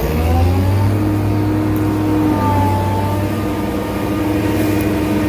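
Loaded grain truck's engine pulling away under load, its pitch rising in the first second and again a couple of seconds in as it gathers speed, then running steadily.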